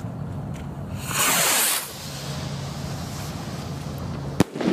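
A warning rocket goes off with a loud hissing whoosh about a second in, followed some three seconds later by a single sharp bang: the firing warning before a demolition blast. A steady low hum runs beneath.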